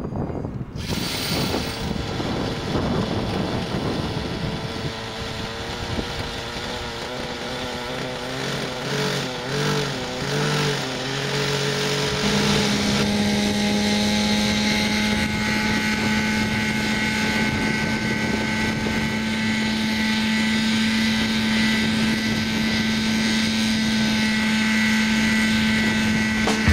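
Thunder Tiger TT50 two-stroke glow engine of a Raptor 50 model helicopter running as the rotor spools up, its pitch wavering at first. About twelve seconds in it settles into a steady tone, the rotor up to flying speed as the helicopter lifts into a low hover.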